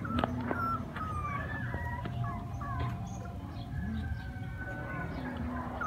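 A puppy whimpering and crying: a string of short, high, thin whines falling in pitch, with one longer whine about four seconds in.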